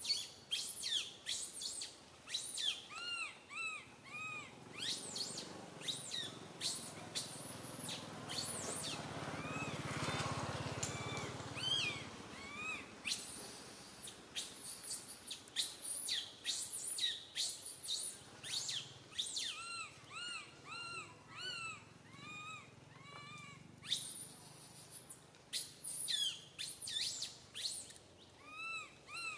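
Baby macaque crying: runs of short, arched squealing calls, two or three a second, with sharper high shrieks between them.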